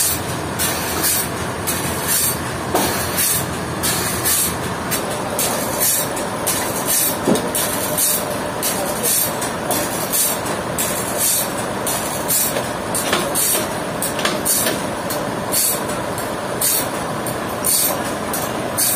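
Sawmill machinery running steadily, with a rhythmic high hiss about twice a second.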